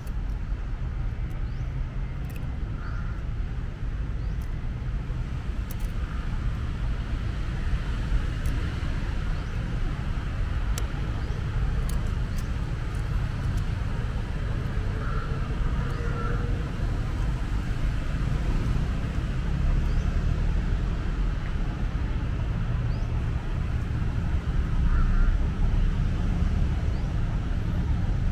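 Steady low rumble of road traffic, with a few faint short higher sounds now and then.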